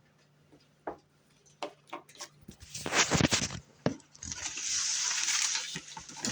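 Handling noises: a few light taps and knocks, a burst of louder clattering about three seconds in, then a steady rustling hiss for a couple of seconds near the end.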